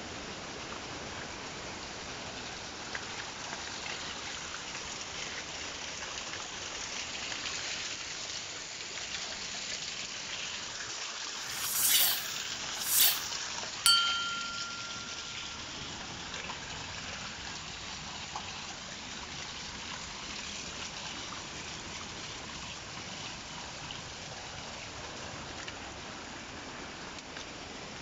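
A steady rush of flowing water. About twelve seconds in come two quick loud whooshes, then a click and a short bell-like chime: the sound effects of an on-screen like, subscribe and notification-bell reminder.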